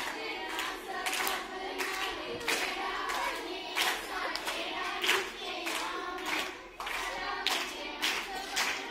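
A group of women singing together while clapping their hands to a steady beat, roughly three claps every two seconds.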